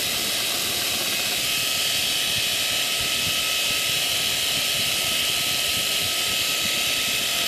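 A grinder grinding the steel horseshoe, cleaning up the newly forged jar calks at the heels. It makes a loud, steady hiss with a thin high whine.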